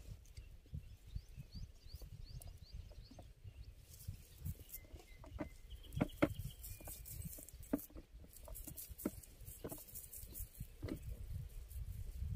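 Rustling and small clicks of a nylon fishing net being handled as the catch is picked out of it, over a low rumble, with a few faint high chirps from birds.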